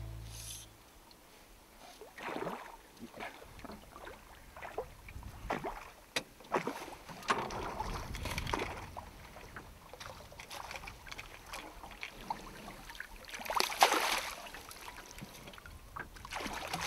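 Irregular splashing and water slapping against the side of a small aluminium boat as a hooked trout is played and drawn into a landing net, the loudest splash about fourteen seconds in.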